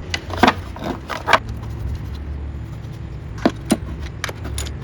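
Engine cover on a 2007 Toyota Camry 2.4L being put back in place after a PCV valve change: a scattering of sharp clicks and knocks, with a steady low rumble underneath.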